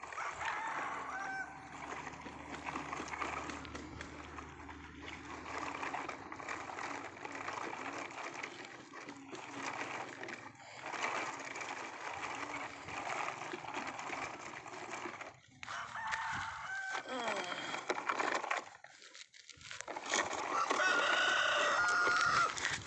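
Plastic toy trucks scraping and rattling over gravel as they are pulled along. A loud, drawn-out crowing call rings out near the end.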